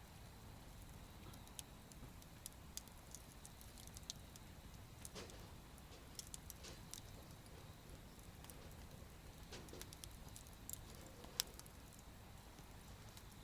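Wood campfire crackling quietly: sparse sharp pops and snaps scattered irregularly, one louder snap near the end, over a faint low rumble.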